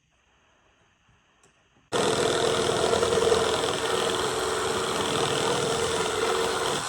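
Power saw cutting a 2x4: the motor starts abruptly about two seconds in, runs steadily for about five seconds with a strong steady whine, and begins to wind down at the end.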